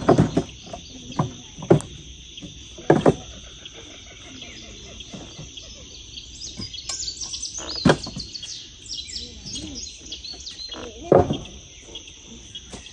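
Knocks and clunks of gear being handled on a utility vehicle's bed, several sharp ones spread through. Behind them runs a steady high-pitched insect chorus, with a run of bird chirps in the middle.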